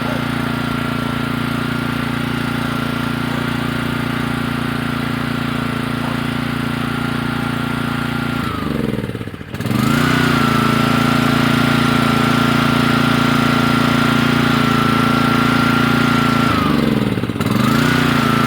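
Honda small engine on a Kärcher pressure washer running steadily, then twice, about nine seconds in and near the end, its speed sags sharply as if about to stall and picks back up. It won't run with the choke off, which the owner puts down to a carburetor that might be a little dirty or just dry.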